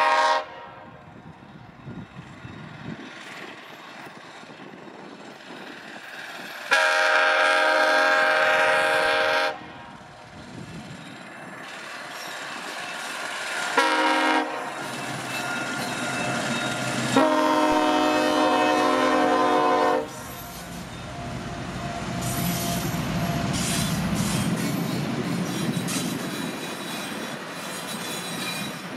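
CSXT 1726's locomotive horn sounding the grade-crossing signal: the end of one blast, then a long blast, a short one and a final long blast. The train then rumbles past with wheel clatter.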